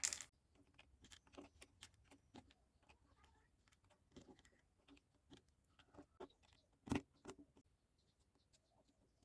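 Near silence with scattered faint clicks and taps of small hard parts being handled, and one sharper click about seven seconds in.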